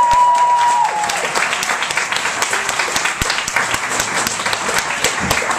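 Audience applauding steadily, with a long held shout that ends about a second in.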